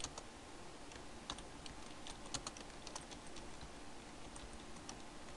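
Computer keyboard typing: faint, irregular keystroke clicks, coming quickly in the first few seconds and thinning out after that.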